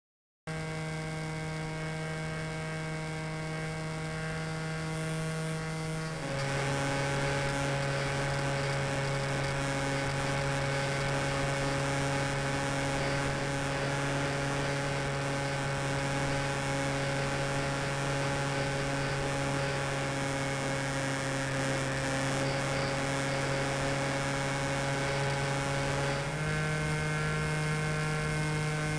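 Falcon Evo RC model aircraft's motor and propeller running steadily, heard through its onboard camera as a constant whining drone. The pitch drops slightly about six seconds in and rises again near the end, as the throttle changes.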